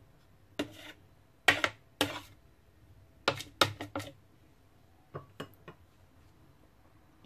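Metal spoon and spatula tapping and scraping against each other and the plastic bowl of a food processor as sticky ground-meat paste is knocked off: a series of short sharp clicks and knocks in small clusters, with a few lighter taps a little past five seconds.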